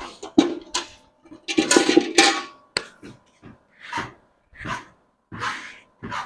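A cow being milked by hand into a bucket: milk squirting in short hissing strokes, roughly one or two a second, with a louder, longer stretch of noise about two seconds in.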